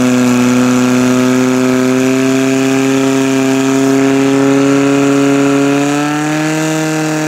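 Portable fire pump's engine running at high, steady revs, pumping water through the hoses to the nozzles. Its pitch rises slightly near the end.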